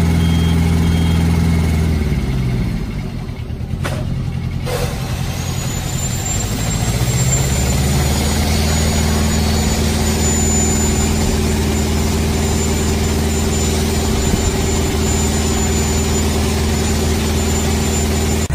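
SPT299 spider crane's engine running steadily while its hydraulics extend the boom. The engine note drops about three seconds in and picks up again a couple of seconds later, and a thin high whine sets in about six seconds in.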